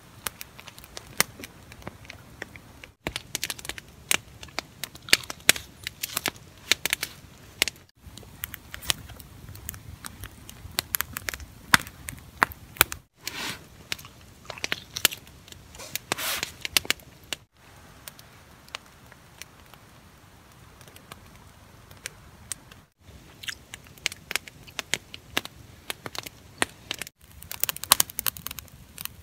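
Wood campfire crackling with sharp, irregular snaps and pops, in several short takes joined by abrupt cuts. Around the middle, close-up biting and chewing as a man eats food held in his hands.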